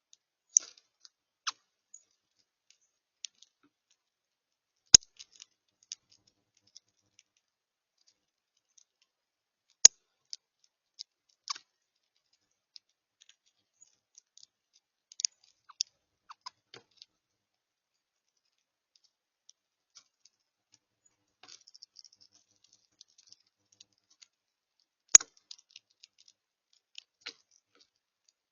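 Birds at a feeder making scattered, irregular sharp clicks and ticks, with three louder knocks spread through.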